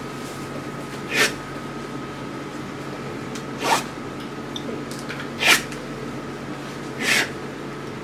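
Steel palette knife scraping thick oil paint across a canvas in four short strokes, each a brief rasp about a second or two apart.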